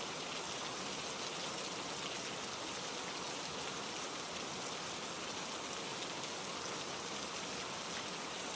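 Steady rainfall, an even hiss of rain with a fine patter of drops.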